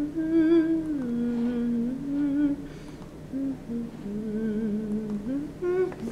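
A person humming a slow, wordless tune, holding each note for about half a second to a second and stepping between pitches, with short pauses between phrases.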